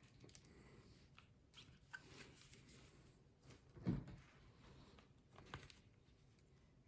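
Near silence with a few faint, short rustles and taps of playing cards being handled, one a little louder about four seconds in.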